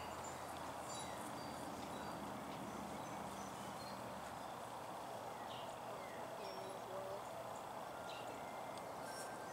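Quiet outdoor background hiss with faint, scattered short bird chirps.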